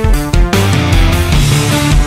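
Loud rock music with guitar over a steady beat.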